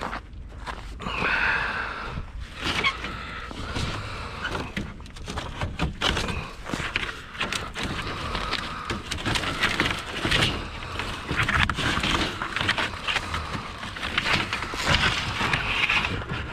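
Pieces of scrap metal clanking and clattering as they are handled, in many irregular knocks with a metallic ring, over a steady low rumble.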